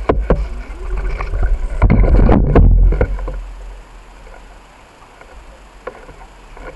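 Jolting and rattling of a bicycle-mounted camera, with a deep rumble and several sharp knocks as the bike rolls over rough dirt and grass. About three seconds in it drops to a quieter, steady rolling noise as the ride continues on smooth pavement.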